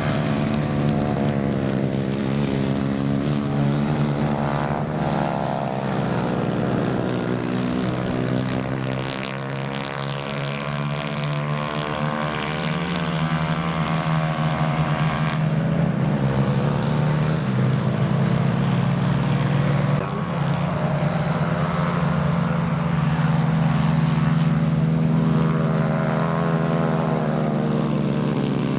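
Several small kart engines running together at race pace, their pitches overlapping and rising and falling as the karts accelerate and ease off.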